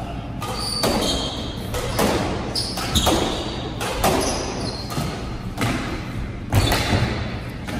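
Squash doubles rally: the hard rubber ball cracks off racquets and walls roughly once a second, each hit ringing in the enclosed court, with short squeaks of court shoes on the hardwood floor in between.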